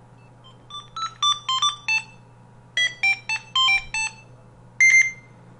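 Gigaset A170A phone ringtone playing: a short electronic melody of beeping notes. It comes in two quick runs of notes about a second apart, then a single held note near the end.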